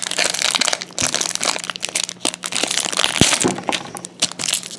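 Foil wrapper of a hockey card pack crinkling and crackling as hands work it open, with many sharp crackles and one louder knock about three seconds in.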